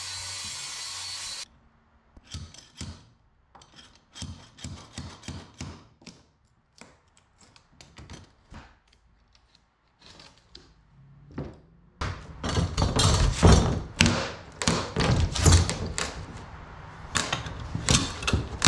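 A circular saw cutting through a plywood floor, which stops abruptly about a second and a half in. Then scattered knocks and scrapes, turning into loud, busy thuds, scrapes and knocks over the last several seconds as a pry bar lifts lightly stapled 3/8-inch plywood floor strips.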